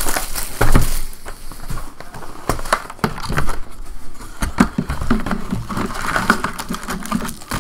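Handling of a sealed Bowman Draft baseball card hobby box: crinkling shrink-wrap plastic, the cardboard lid flap being opened and the foil packs being lifted out. It comes as an irregular string of rustles, small clicks and knocks.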